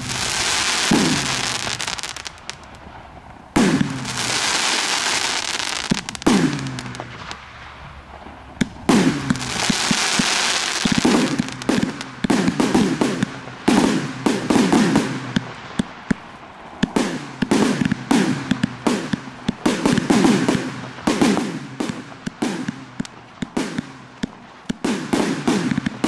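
TB201 professional fireworks cake (288 shots) firing shot after shot, with long stretches of hissing from the bursts. The shots come quicker and denser from about eleven seconds in.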